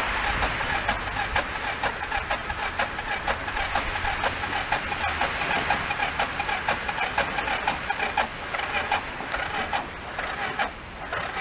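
Electric starter cranking the air-cooled engine of a homemade rat-rod ATV on a cold start with the choke on. The engine turns over steadily in rapid pulses without catching, and the cranking stops near the end; the battery is running down.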